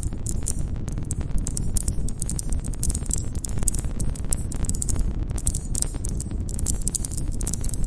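Campfire burning: wood crackling and popping in dense irregular clicks over a steady low rush of flame, with crickets chirping high above it.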